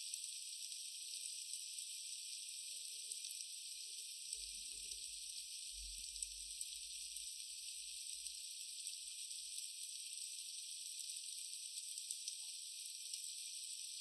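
Oil sizzling and crackling in a frying pan as the rice, onion and mushroom stuffing fries: a steady hiss with small scattered pops.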